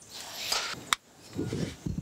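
Handling noise from a socket wrench being moved and fitted onto a steam chest cover nut: a rustle, a single sharp metallic click about a second in, then a low scraping noise.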